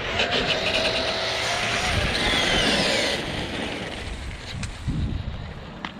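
Losi 3XL-E electric RC truck with a Hobbywing 2250kv brushless motor on a high-speed run: a high motor whine over tyre and wind rush. The whine drops in pitch as the truck passes, a couple of seconds in, then fades away.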